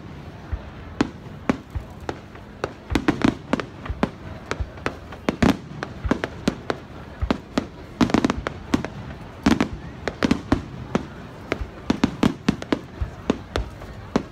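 Aerial fireworks display: shells bursting in quick, irregular succession, sharp bangs and crackling with heavier booms every couple of seconds.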